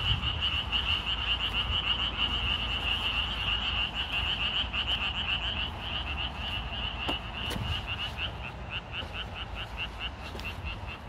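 A chorus of many frogs calling at once: a dense, fast pulsing chatter at one high pitch, which thins toward the end into separate calls about four a second.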